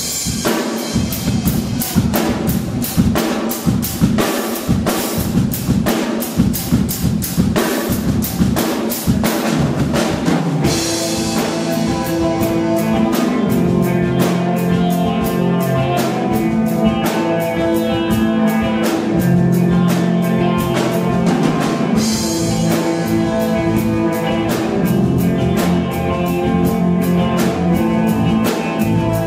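Rock band playing live: a drum kit keeps a steady beat, at first with little else, then about ten seconds in a cymbal crash brings in held electric guitar and bass notes over the drums, with another crash about twenty-two seconds in.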